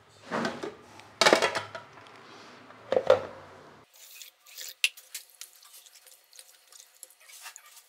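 Water splashing in a steel pot as soaked millets and lentils are rinsed, with loud sloshes in the first few seconds. Then fresh water runs in, and a steel spoon clicks against the pot while the grains are stirred.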